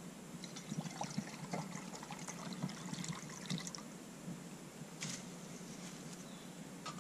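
Water poured from a plastic canteen into a steel canteen cup, trickling and splashing unevenly for the first few seconds. A light knock follows about five seconds in.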